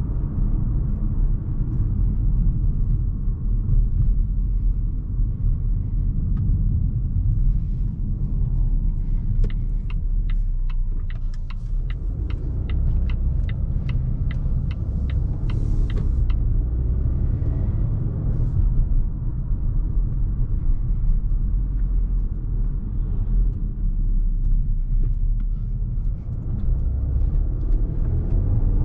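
Cabin noise of a 2020 Volvo V60 T5 Cross Country under way: a steady low rumble from its 2.0-litre turbocharged four-cylinder and tyres on the road. About ten seconds in, the turn-signal indicator ticks evenly, two to three clicks a second, for about six seconds while the car turns, then stops.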